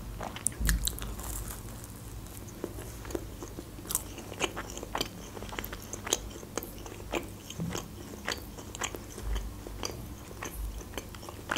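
Close-miked chewing of a soft, sugar-dusted Leningrad-style fried doughnut (pyshka), with irregular wet mouth clicks and smacks, several a second.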